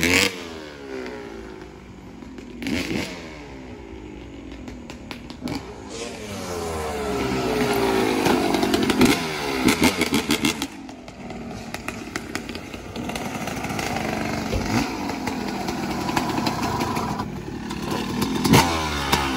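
Dirt bike engine revving, its pitch sweeping up and down again and again as the bike is ridden.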